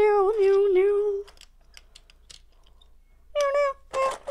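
A child's voice holds one long, wavering vocal note for about a second and a half, making a play sound effect. A few faint light clicks follow, then more short pitched vocal sounds near the end.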